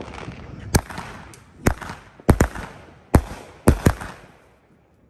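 Pro Fireworks White Lightning, a 16-shot 200 g consumer firework cake, firing: about seven sharp bangs in quick, uneven succession, each trailing off briefly.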